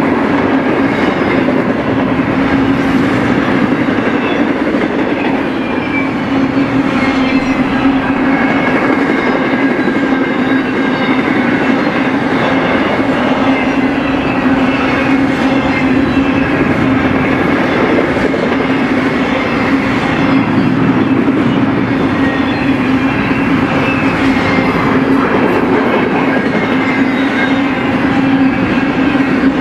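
Double-stack intermodal freight cars rolling past: a loud, steady noise of steel wheels on rail with a constant hum underneath and faint high-pitched ringing tones.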